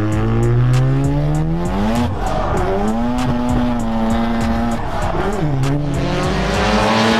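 Turbocharged 13B rotary engine of a Mazda RX-7 FC3S revving hard while drifting, heard from inside the cabin, with tyres squealing. The engine pitch climbs, dips briefly about two seconds in and again past halfway, then holds high.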